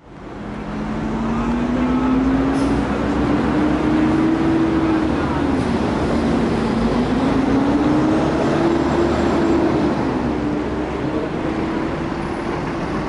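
City bus pulling away and driving past, over steady road noise. Its engine and drivetrain whine climbs in pitch and drops back twice, as the bus shifts up. The sound fades in over the first second or so.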